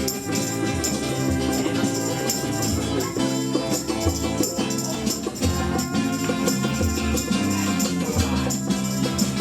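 A band playing an instrumental passage of a rocksteady song, with a stepping bass line under steady, evenly spaced percussion.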